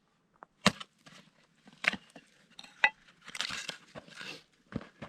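Pieces of firewood being laid down side by side as a base for a campfire on snow, knocking against each other: about four sharp wooden knocks with softer scraping and rustling in between.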